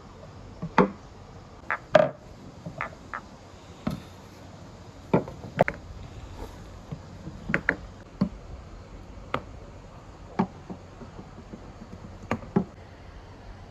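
Marbles rolling through a marble run, clacking against the track in irregular sharp clicks and knocks, some with a brief ring.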